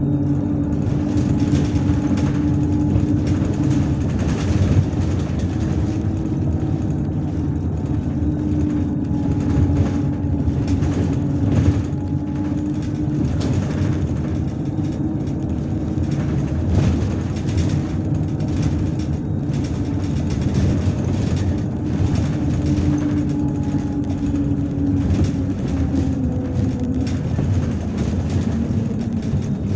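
MAZ-103 city bus's diesel engine running under way, heard from inside the passenger cabin, with road rumble and scattered knocks and rattles. The engine note drifts slowly up and down with the bus's speed.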